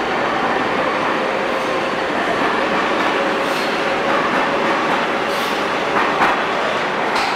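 New York City Subway R188 7 train running out of the station into the tunnel: a steady rumble of steel wheels on rail with a faint steady whine. A couple of sharp clanks come near the end.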